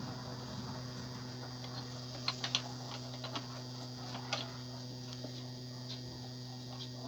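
A few light metallic clicks and taps, clustered about two seconds in and again about four seconds in, as differential side gears and shim washers are handled and fitted into the housing. A steady low hum runs underneath.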